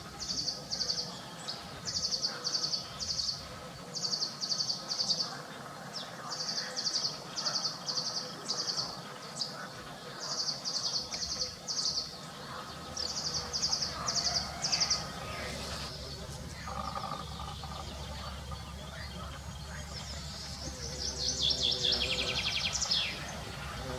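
A songbird singing: phrases of three or four quick, high trilled notes, repeated every second or so, then a faster descending run of notes near the end. A low steady hum comes in about two-thirds of the way through.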